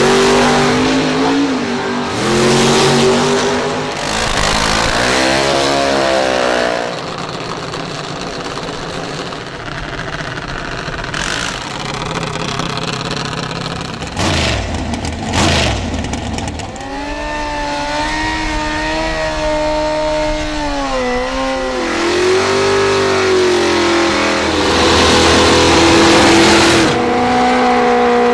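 Drag racing cars' engines running and revving, their pitch climbing and dropping as cars rev, launch and run down the strip. There is a loud rushing stretch about halfway through.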